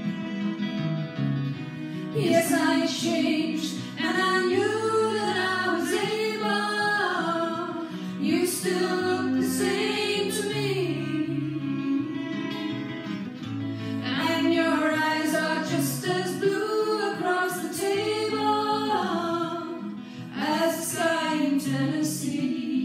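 A woman singing a slow ballad with guitar accompaniment, in sung phrases separated by short breaths.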